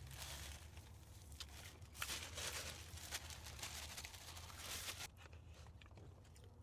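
Paper napkin rustling and crinkling as it is pressed and wiped over the mouth, in a few spells that stop about five seconds in.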